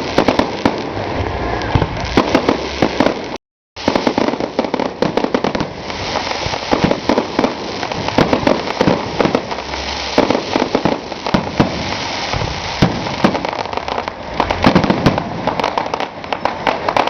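Fireworks display: a dense, continuous run of bangs and crackles from shells bursting in quick succession. The sound drops out completely for a moment about three and a half seconds in.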